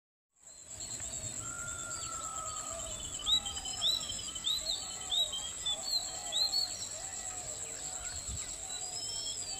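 Countryside ambience of several birds chirping and calling over a steady, high-pitched insect trill. A run of quick rising chirps repeats over and over, with lower warbling calls beneath.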